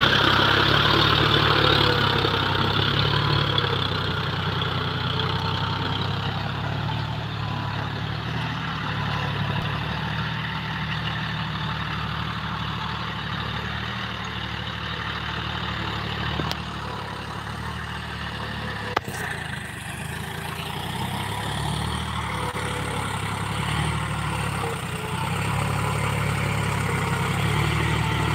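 John Deere tractor's diesel engine running steadily under load as it pulls a tine cultivator through soil. It is loudest at first while close, fades as the tractor moves away across the field, and grows louder again near the end as it comes back. A single sharp click comes about two-thirds of the way through.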